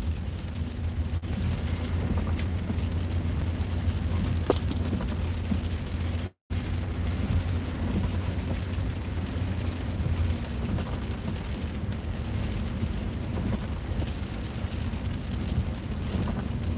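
Steady low road and engine rumble inside a moving car, with a couple of faint ticks. The sound cuts out completely for a moment about six seconds in.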